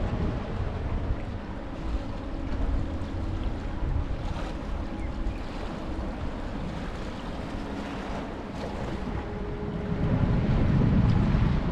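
Wind buffeting the microphone over small waves washing against the shore, with a faint low steady hum from the berthed ferry. The wind gusts louder near the end.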